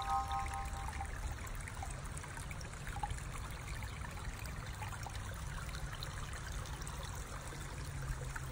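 Small woodland brook trickling steadily over rocks. A short held chime-like tone cuts off about a second in.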